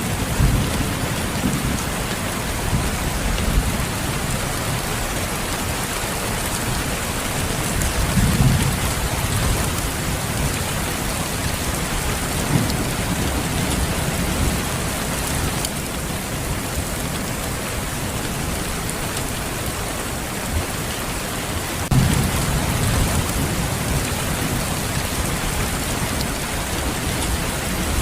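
Steady heavy rain hissing, with low rumbles of distant thunder swelling up three times: just after the start, about a third of the way in, and again near the end.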